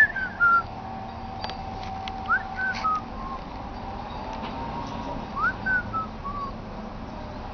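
A person whistling three short calls, about two and a half seconds apart. Each call is a quick upward swoop followed by a few notes stepping down.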